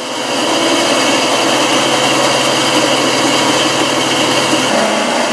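Ryobi benchtop bandsaw running free with no wood in the blade, a steady motor hum with a thin whine. It runs smoothly on its lower wheel, whose tire has been rebuilt from electrical tape.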